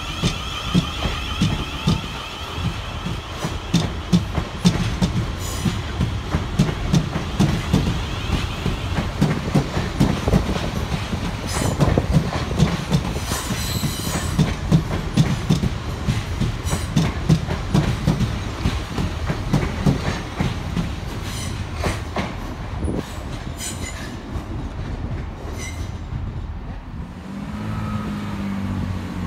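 South Western Railway electric multiple unit moving along the platform: its wheels clack continuously over rail joints, with a few brief high wheel squeals. A whine of the train's traction motors fades out at the start, and the clacking thins out towards the end.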